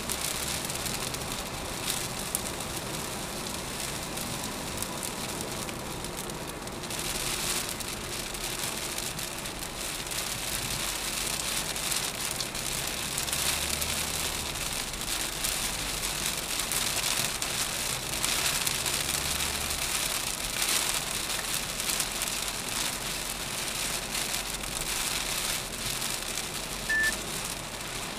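Heavy rain pattering on a car's windshield and roof, heard from inside the cabin, over the steady hiss of tyres on a wet road as the car drives.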